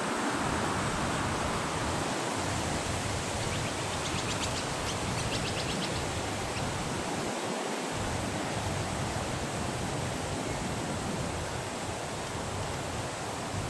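A steady rushing hiss, with a short run of quick, high bird chirps from about three and a half to six and a half seconds in.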